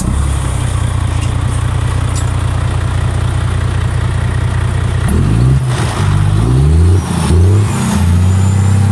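Volvo FH truck's straight-six diesel running with its exhaust open at the opened DPF housing, blowing out soot: a steady idle, then revved in about three quick blips starting around five seconds in, settling back to idle near the end.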